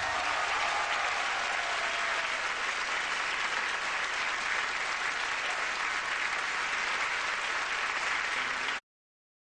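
Large theatre audience applauding steadily, a dense even clapping that cuts off suddenly near the end.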